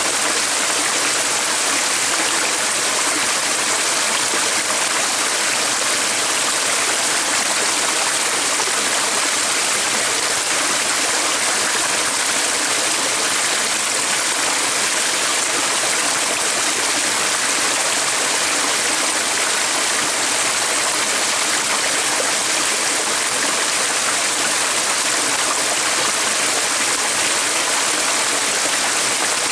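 Steady rushing of a flowing stream, an even water noise that does not change.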